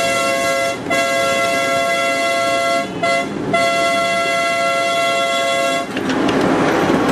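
A train's multi-tone horn sounds the grade-crossing signal: long, long, short, long. It stops about six seconds in, leaving the steady rush of the passing train.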